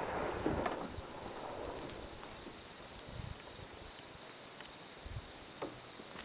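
Insects trilling steadily in a high, even pulsing tone, over faint outdoor noise.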